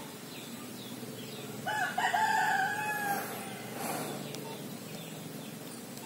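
A rooster crowing once, starting a little under two seconds in and lasting about a second and a half.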